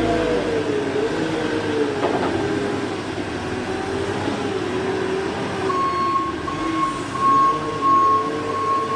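Tractor engine running with its pitch rising and falling as it drives over crimped grain to compact it down. About two-thirds of the way in, a steady high whine joins the engine.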